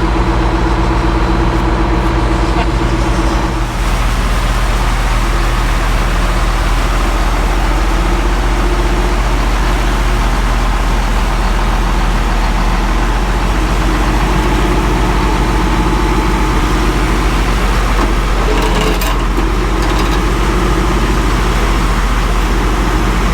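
Heavy vehicle engine running steadily, its note shifting about four seconds in.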